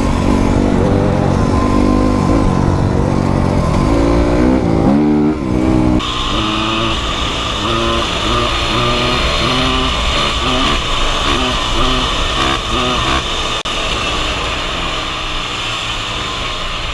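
Dirt bike engine running under way, its pitch rising and falling as the throttle opens and closes through the gears. About six seconds in the sound changes abruptly to a steadier engine note under a strong hiss.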